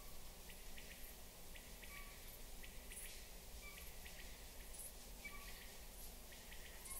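Faint nature ambience: a steady hiss with short, scattered bird calls and small clicks every second or so.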